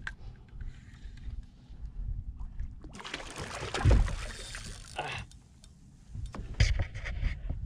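Water sloshing and splashing around a fishing kayak over a constant low rumble. There is a louder splashing burst about three seconds in that lasts some two seconds, and a shorter one near the end.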